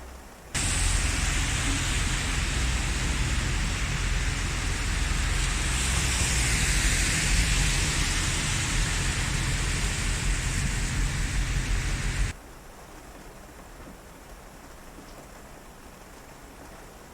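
Heavy rain: a dense, steady hiss with a low rumble underneath, which cuts in abruptly about half a second in and cuts off near twelve seconds, leaving a much fainter steady hiss.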